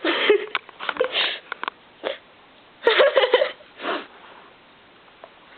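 A person's short wordless vocal sounds and sniffs, five or so brief outbursts over about four seconds, then quiet.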